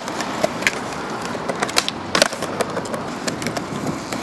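Skateboard rolling over paving slabs, its wheels making a steady rolling noise, with several sharp clacks of the board. The loudest clack comes about two seconds in.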